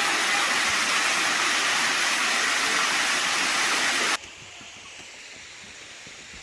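Waterfall rushing loudly, a steady roar of falling water that cuts off suddenly about four seconds in, leaving a much fainter rush of water.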